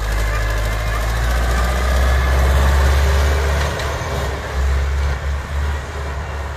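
Farm tractor's diesel engine running with a deep, uneven rumble as the tractor pulls a snow-clearing implement across the yard.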